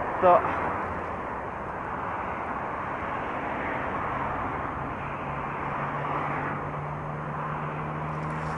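Steady rushing noise of wind and road traffic heard from a moving bicycle, with a brief sharp sound just after the start. A low, steady vehicle engine hum comes in about halfway through and holds.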